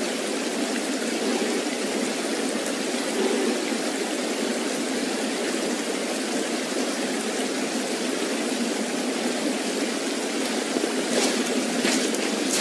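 Steady rushing of flowing creek water, with a few faint clicks near the end.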